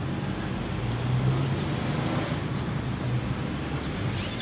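Steady outdoor urban background noise: a continuous low hum and rumble, like distant traffic, with no distinct events.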